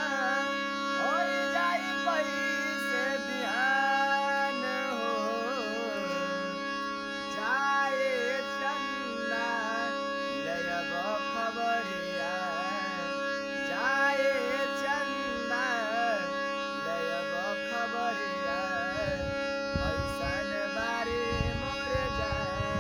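Harmonium playing an ornamented Bhojpuri folk-song melody over steady held drone notes, with no singing. Low thumps come in near the end.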